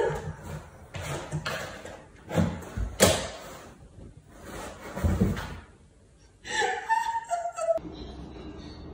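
A cat scrambling up the front of a cardboard cat house, its body and paws bumping the cardboard in several sudden thuds, the loudest about two and a half, three and five seconds in.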